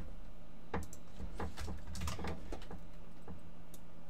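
Computer keyboard typing: scattered, irregular keystrokes over a faint steady low hum.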